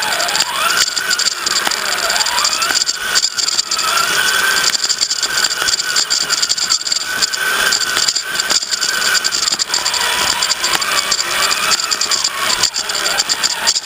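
RC rock crawler's motor and geared drivetrain whining, the pitch rising and falling with the throttle, while the chassis rattles and clicks over the rough ground.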